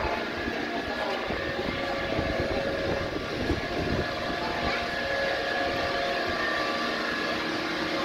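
Steady mechanical drone with several held tones, over an uneven low rumble.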